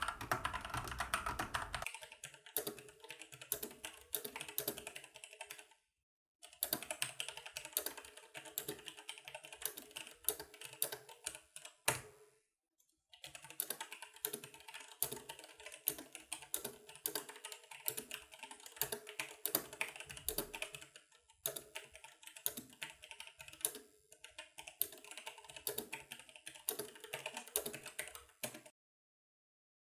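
Logitech G613 keyboard's Romer-G switches being typed on in fast runs of keystrokes, with two short breaks, then stopping shortly before the end. In the first two seconds a different keyboard, a Keychron C2 with Gateron Red switches, is typed on, with more low thud to its keystrokes.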